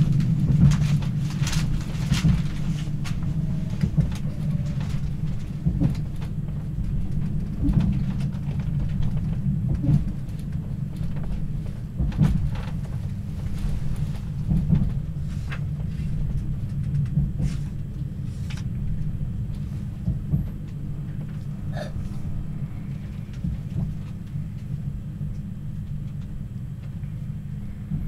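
Train running noise heard inside a passenger car: a steady low rumble with scattered short clacks and knocks from the wheels and car body. It grows gradually quieter.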